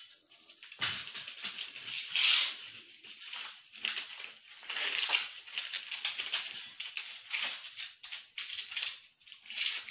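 Exoskeleton strap belt being handled: the straps rustle and the metal fittings clink and rattle in uneven bursts.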